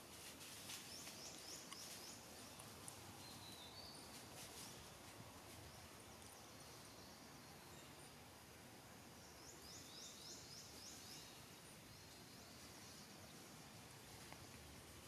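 Faint forest ambience with a bird giving a quick run of high chirps twice.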